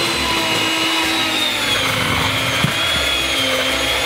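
Electric hand mixer running steadily as it beats cake batter in its bowl, a motor whine that wavers slightly in pitch. A single short tap about two and a half seconds in.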